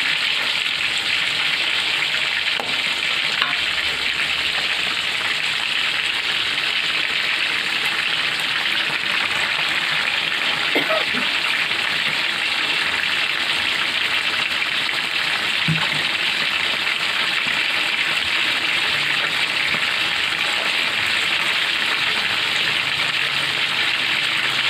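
Sliced jengkol (dogfruit) cooking in a wok of sauce, sizzling and simmering with a steady hiss, with a few faint knocks. The jengkol is being cooked until soft.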